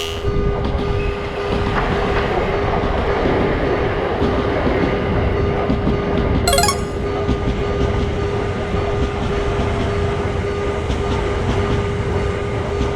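Electric train running past a Japanese level crossing, a steady rumble and clatter of wheels on rail, with the crossing alarm's steady tone sounding over it. There is one sharp clack about halfway through.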